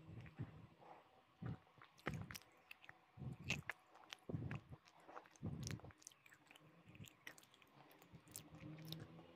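A person chewing hard, crunchy chalk-like pieces close into a clip-on microphone, with irregular sharp crunches roughly once a second.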